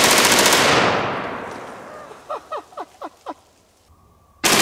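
Two bursts of full-auto fire from a CMMG MkW-15 rifle in .458 SOCOM. The first comes right at the start: rapid shots over about half a second that ring out and fade over the next two seconds. The second begins near the end. In between come five short chirps, each falling in pitch.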